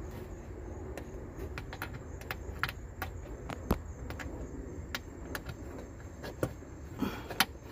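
Scattered light clicks and taps as plastic push-in clips are worked into a 2017 Nissan Altima's front wheel-well splash shield by hand, over a low steady rumble.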